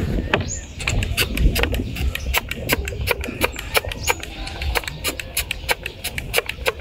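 Many sharp, irregular clicks and scratches, several a second, from hand-cleaning a motorcycle fuse box whose diode pins are corroded.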